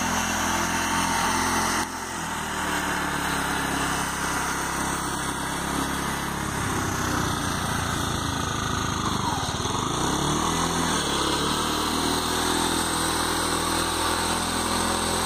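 Engine of a homemade tractor running steadily while it pulls a plough tine through the soil; about two-thirds of the way through its speed sags and then picks back up.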